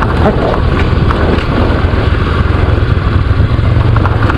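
Motorcycle running while being ridden down a steep dirt track, a steady low engine rumble under constant riding noise, with scattered faint clicks.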